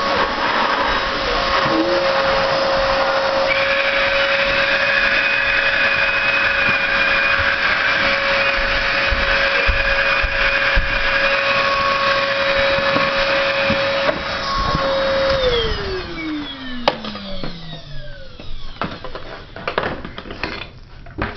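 Oreck XL canister vacuum running steadily with a whine and rushing air, used as a blower to fill the plastic air cushion of a homemade hovercraft. About fifteen seconds in its motor winds down, the whine falling in pitch, and a few knocks and handling sounds follow.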